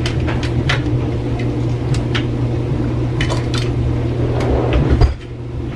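Kitchen items being handled and put away: a run of light clicks, clinks and clatters of dishes and containers, over a steady low hum, with a louder thump about five seconds in.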